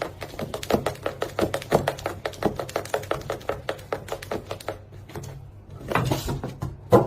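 A rapid run of light clicks or taps, about five a second, that stops about five seconds in. A short rustling noise follows near the end.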